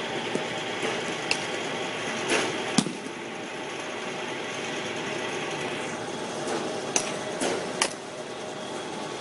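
A baseball pitching machine running steadily, with sharp knocks of balls being hit with a bat and striking the cage. The loudest knock comes about three seconds in, and three more come close together near the end.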